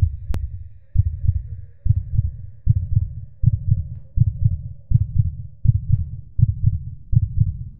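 A heartbeat sound effect: deep lub-dub double thumps, about one a second at first and gradually quickening, over a faint steady tone.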